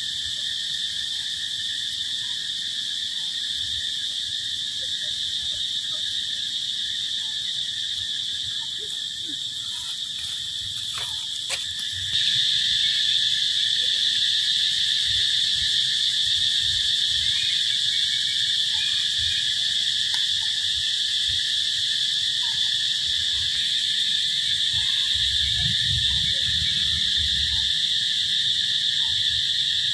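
A steady, high-pitched chorus of insects buzzing without a break, becoming louder about twelve seconds in, with a few faint clicks just before.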